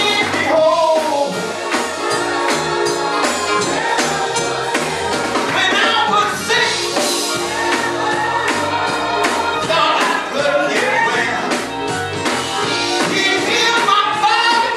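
Live gospel music with singing over a band, a steady beat of drums and tambourine.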